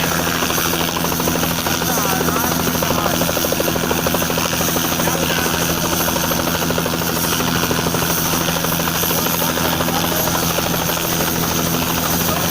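Helicopter engine and rotor running steadily, with a fast, even rotor chop.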